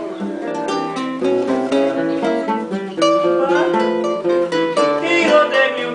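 Two acoustic guitars playing an instrumental passage of picked notes and chords between sung verses of a song.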